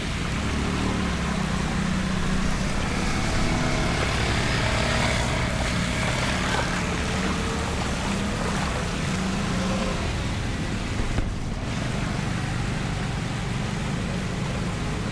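Steady rushing hiss of rain and water on a flooded road, with a vehicle engine running underneath.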